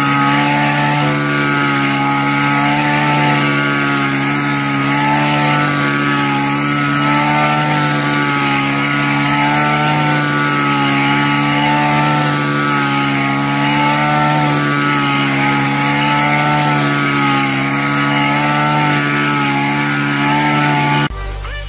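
Small petrol engine of an HT230 rice cutter running steadily at high speed while it cuts through rice stalks, its pitch wavering slightly. It cuts off abruptly near the end, giving way to music.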